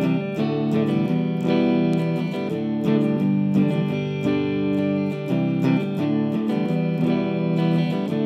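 Jackson JS32T Rhoads Flying V electric guitar on its stock pickups, played with a clean tone through a Marshall Origin 50 valve amp head: picked chords and arpeggiated notes, each attack left to ring on.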